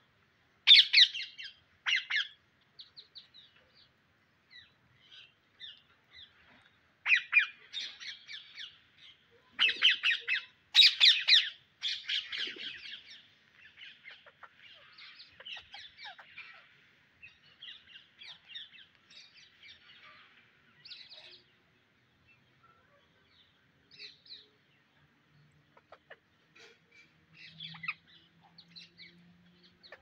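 A flock of rose-ringed parakeets calling: clusters of loud, harsh screeches in the first half, then scattered, quieter chatter.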